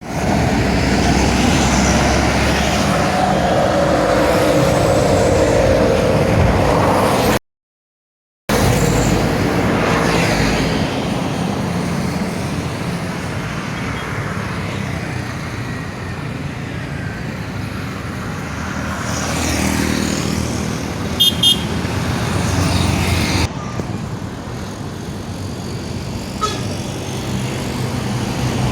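Highway traffic with heavy vehicles passing, and a bus's deep ship-style air horn sounding over it in the first several seconds, its pitch sagging slightly. The sound cuts out for about a second, and about 21 seconds in there are two short high beeps.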